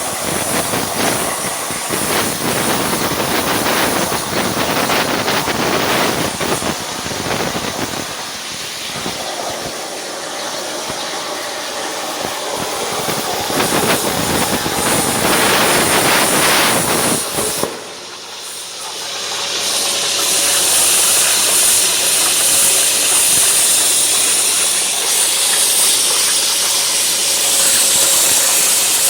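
Hypertherm Powermax 105 plasma torch cutting steel plate: a loud, crackling hiss. About two-thirds of the way through it briefly drops away, then comes back as a steadier, brighter hiss.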